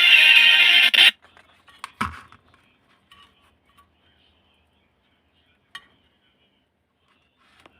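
Background electronic music that cuts off suddenly about a second in, followed by a few faint light clicks and knocks, the sharpest one about two seconds in.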